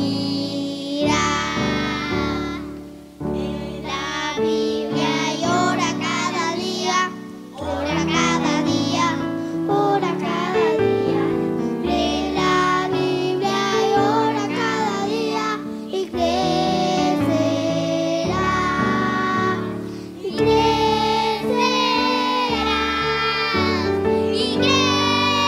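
A group of young children singing a Spanish-language Christian children's song into microphones, with instrumental accompaniment.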